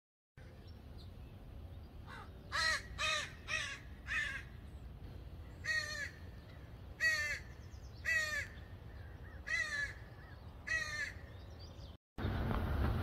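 A crow cawing repeatedly: about nine short, harsh caws, a quick run of four and then single caws every second or so.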